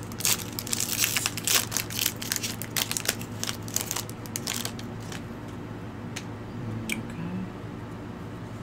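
Foil wrapper of a Pokémon TCG booster pack crinkling as it is torn open by hand: a dense run of crackles for about the first four and a half seconds, then only a few light ticks and rustles as the cards are handled.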